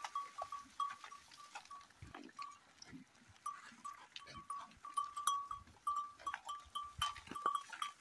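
A flock of sheep on the move: occasional bleats and hoof steps, with a small bell clinking again and again at one pitch.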